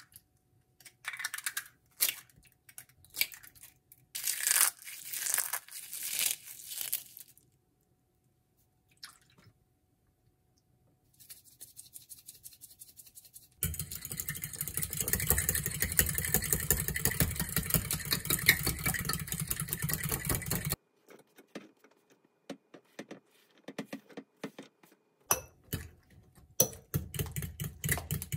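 Eggs cracked open over a bowl, with the shells crackling and snapping apart. A metal spoon then beats the eggs fast against the bowl, a dense rapid clatter for about seven seconds. After that come scattered clicks and scrapes as chopped mushrooms and onion are stirred in.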